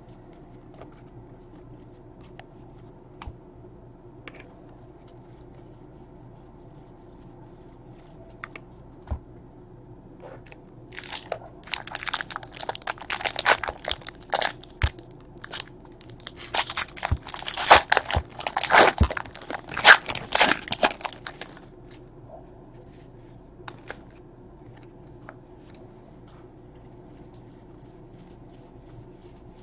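Foil wrapper of a Panini Score football card pack torn open and crinkled, in two bouts of crackling a few seconds long, one right after the other, about midway through. Faint ticks of cards being handled come before and after.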